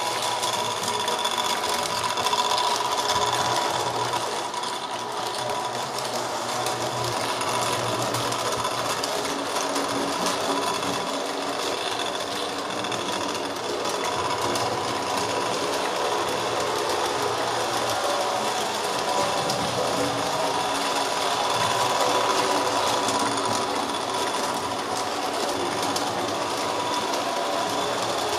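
Lionel O gauge electric toy train running steadily on three-rail track: a continuous whir of the locomotive's motor and gearing mixed with the sound of its wheels on the metal rails.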